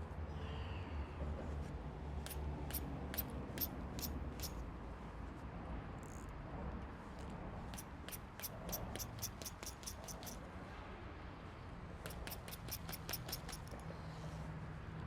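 Fishing reel ticking in runs of quick, evenly spaced clicks, several a second, as line is worked against a snagged lure. A low steady hum lies underneath.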